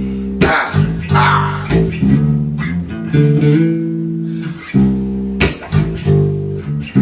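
Bass guitar played solo: plucked, held notes and chords in the low register, changing every second or so, with a few sharp string attacks.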